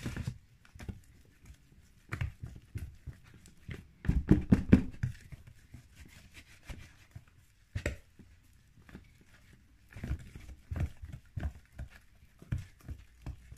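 Hands kneading and stretching a sticky shampoo-and-cornflour slime, making irregular squelching and tearing sounds, loudest about four seconds in.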